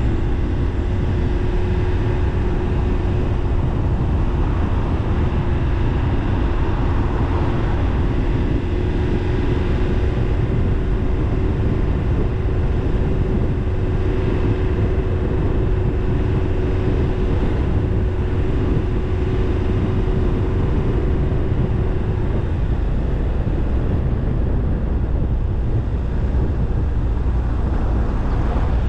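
Car driving along a paved road: a steady low rumble of engine and tyres, with a faint steady whine that stops about three-quarters of the way through.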